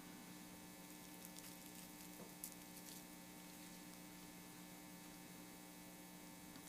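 Near silence with a steady electrical mains hum, and a few faint soft clicks.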